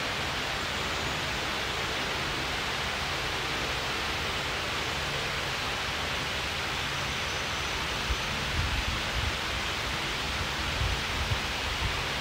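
Steady rushing air noise, with low gusts buffeting the microphone several times about eight to eleven seconds in.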